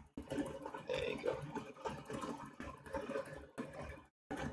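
Soldering fume extractor fan running, a steady motor and air noise, cutting out briefly about four seconds in.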